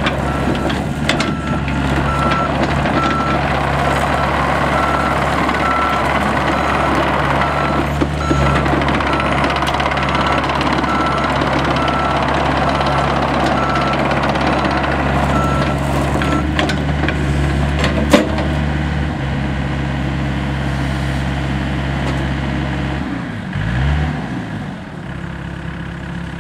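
A Gehl 803 mini excavator's diesel engine running steadily under a repeating high beep from its motion alarm. The beeping stops about two-thirds of the way through, and a sharp click follows a little later. Near the end the engine note falls in pitch and the machine gets quieter as it throttles down.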